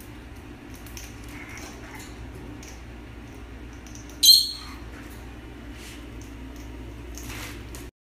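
An African grey parrot gives one short, sharp, high squeak about four seconds in, over faint light clicking and a low steady hum.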